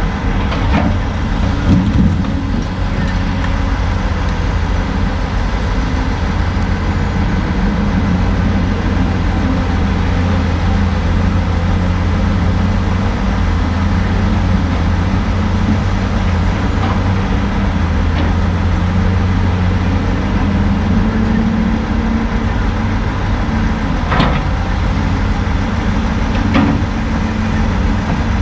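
Heavy diesel engines running steadily: a CAT log loader working its grapple beside an idling Kenworth T800 log truck. There are a few sharp knocks of logs or the grapple, one about two seconds in and two more near the end.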